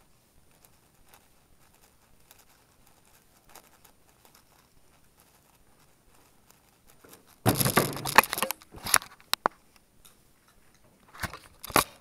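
Faint clicking of a Hays7 7x7 speedcube being turned, then a loud burst of rustling and knocks right at the microphone about seven and a half seconds in, with more knocks near the end as a hand handles the camera.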